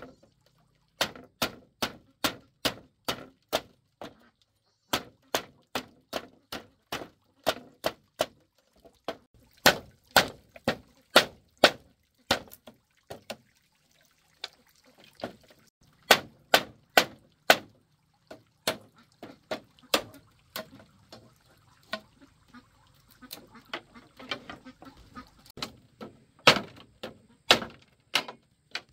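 Machete chopping notches into a green bamboo tube resting on a wooden block: a series of sharp knocks, about two a second, in runs broken by short pauses.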